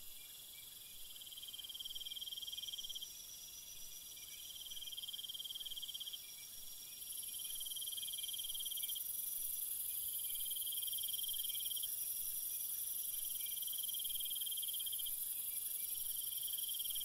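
Insects calling at night: a high cricket-like trill that comes in spells of about two seconds with short breaks, over a steady, even higher insect drone that grows louder about seven seconds in.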